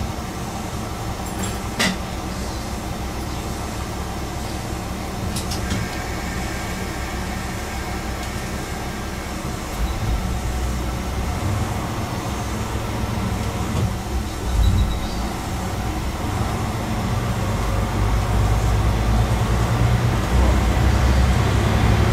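Chizu Express HOT3500 diesel railcar running under power, heard from inside at the front; its engine rumble grows steadily louder as the train accelerates, with a couple of sharp clicks in the first few seconds.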